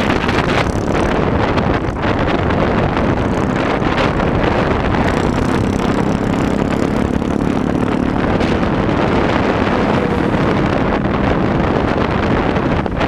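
Wind buffeting the microphone of a camera mounted on the outside of a moving car, over loud road and engine noise. A low, steady engine drone comes in for a few seconds in the middle.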